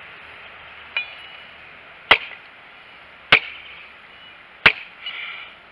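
An 18-inch Imacasa Latin machete of 1075 carbon steel chopping into a hard piece of branch wood: a light tap about a second in, then three sharp blade strikes about a second and a quarter apart.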